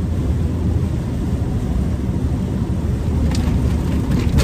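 Cummins diesel of a 1983 Kenworth K100 cabover heard from inside the cab on the road. It gives a low, uneven rumble with no steady engine note while the driver works through a gear change. A couple of short clicks come near the end.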